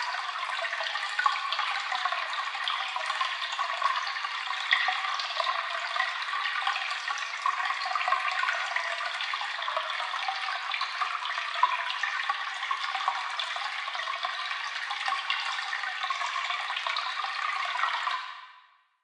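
Small waterfall: water splashing and rushing steadily with little splashes throughout, fading out near the end.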